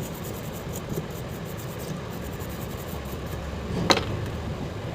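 Steady low background rumble, with one sharp click about four seconds in.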